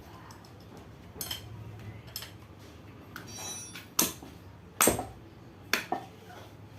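Metal tools and engine parts clinking and knocking together while a Honda GL Pro motorcycle engine is taken apart: a handful of sharp, separate clinks, the loudest about four and five seconds in, with a brief metallic ring a little after three seconds.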